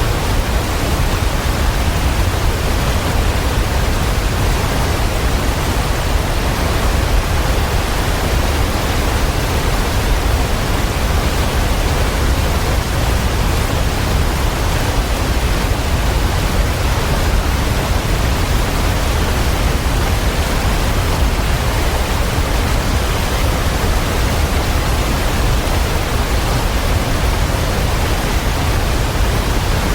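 Waterfall: a steady, unbroken rush of falling water, deepest and strongest in the low end, with no change in level.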